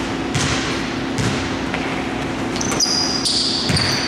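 A basketball being dribbled on a wooden indoor court, bouncing about once a second with the boom of a large hall. High sneaker squeaks on the floor come in over the second half.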